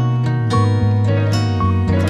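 Background music on a plucked string instrument: a steady run of plucked notes over a held low bass note.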